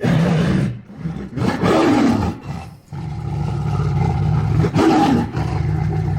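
Angry tiger roaring and growling: a sudden roar, a second roar that falls in pitch, then after a brief break a long low growl that swells into another roar near the end.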